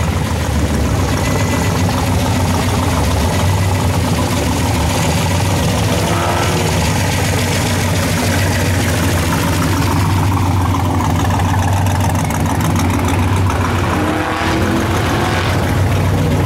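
Twin 6-71 supercharged 355 cubic-inch small-block Chevy V8 in a 1965 Chevrolet C-10 pickup, running at a steady idle.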